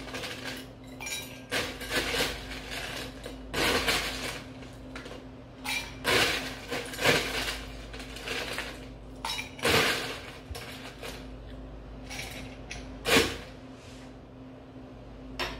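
Ice cubes scooped from an ice bucket and dropped into a glass, clinking and knocking at irregular intervals.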